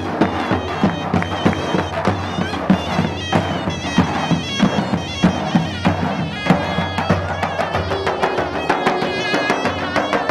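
Davul and zurna playing: the zurna's reed melody over regular strokes of the davul, a large double-headed drum.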